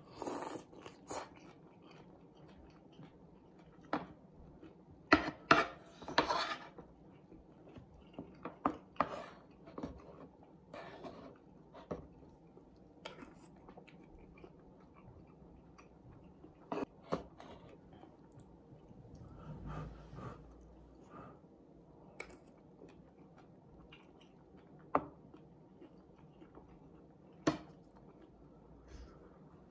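A person eating with a spoon from a wooden bowl: slurping at the start, then chewing, with the spoon now and then clicking and scraping against the bowl.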